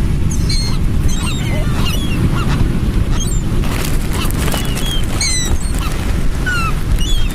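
A flock of gulls calling, many short high calls overlapping one another, over a steady low rumble.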